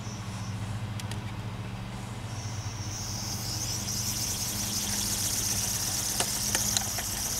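Home-made pentabellow compressed-air engine on a model boat starting up: a hiss of escaping air builds about two seconds in and stays steady as the engine spins up, over a steady low hum, with a few sharp clicks near the end.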